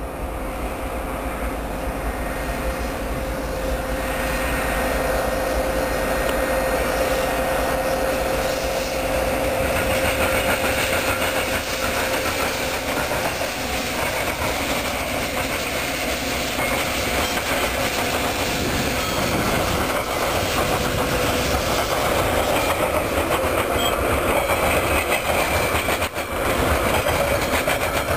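Metra commuter train passing: the diesel locomotive's engine running and steel wheels on the rails, followed by the bilevel gallery cars rolling by. A steady whine sits under it for much of the time, and the sound grows louder about ten seconds in as the train draws level.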